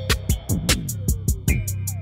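Background music with a steady drum-machine beat over deep bass.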